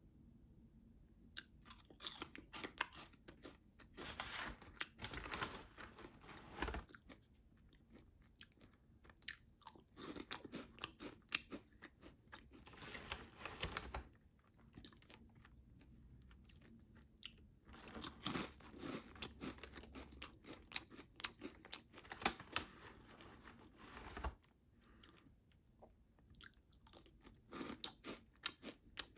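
Crunching of Harvest Snaps baked pea crisps: dense crackles that come in several spells with quieter gaps between them.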